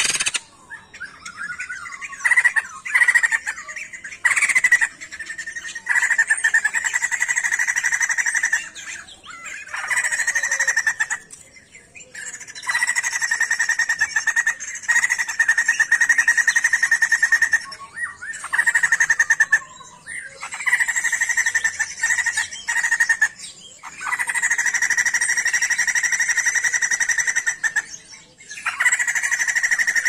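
Sumatran laughingthrush (poksay jambul) calling in long, rapid trilled bursts a few seconds each, separated by short breaks.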